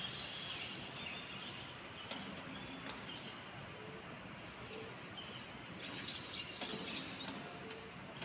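Steady outdoor background noise with faint bird chirps and a few light clicks.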